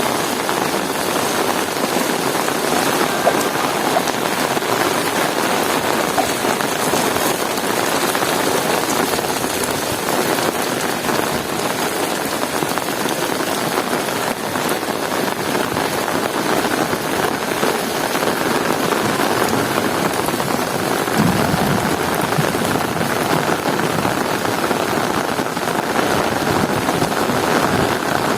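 Heavy rain falling steadily, a dense even hiss of drops. About two-thirds of the way in, a low rumble joins underneath.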